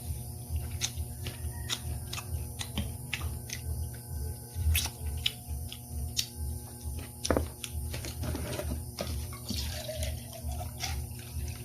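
Close-up eating sounds: wet chewing and mouth clicks, many short irregular clicks over an uneven low pulsing.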